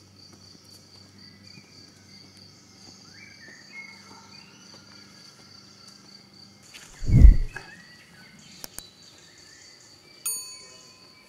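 Insects chirring steadily at a high pitch, with a few faint chirping calls in the first half. A single deep thump about seven seconds in is the loudest sound, and a short bell-like chime rings near the end.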